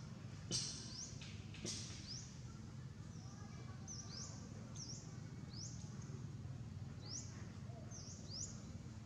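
A small bird giving short, high, rising chirps, roughly one a second and unevenly spaced, over a steady low background rumble. Two sharp clicks come in the first two seconds.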